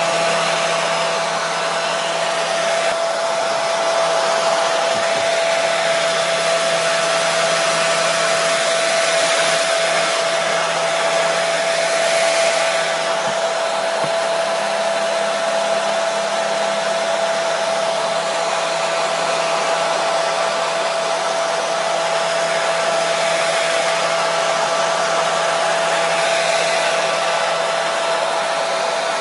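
Hair dryer running continuously: a steady rush of air with a steady whining hum from the motor, unchanging throughout.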